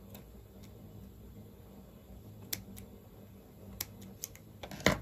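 Small scissors snipping yarn ends: a few light, sharp clicks of the blades, with one louder click near the end.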